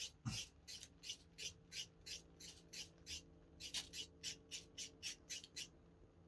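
Rhythmic scraping strokes, about three a second, with a pause of about a second midway before they resume.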